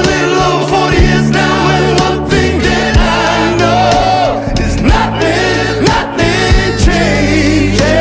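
Background music: a song with sung, choir-like vocals over sustained bass notes and a recurring low drum beat.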